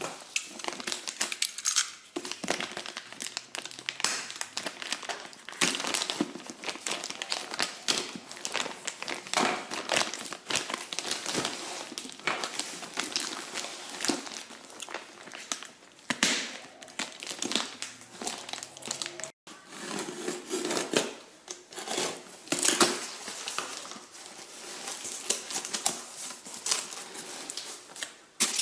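Packaging crinkling and rustling as a new replacement alternator is unwrapped and handled, in a dense run of irregular crackles.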